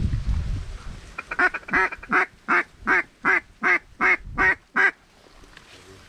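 Mallard duck call blown in a series of about ten loud, evenly spaced quacks, roughly three a second, stopping near the five-second mark: a hunter calling to circling ducks. Wind rumbles on the microphone at the start.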